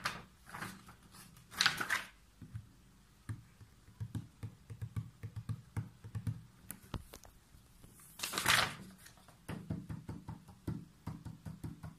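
Scattered light clicks and taps, with two short hissing rushes about two seconds in and again near eight and a half seconds.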